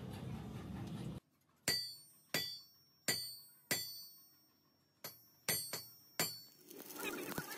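An upright steel crankshaft is struck seven times with a hand tool. Each sharp metallic strike rings on like a bell, with several high, clear tones dying away.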